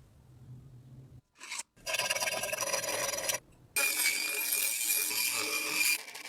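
Abrasive scraping on the rusty axe head in two long, loud stretches with a short break between them, the second carrying a steady high whine.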